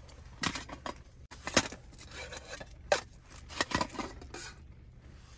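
Metal camping cookpot clinking and scraping as it is pulled out of a mesh stuff sack, several sharp metallic clinks a second or so apart.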